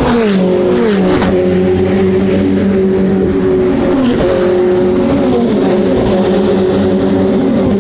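Ferrari race car engines running loud and steady at a racetrack. The pitch drops in steps about a second in and again around four to five seconds in, like gear changes down.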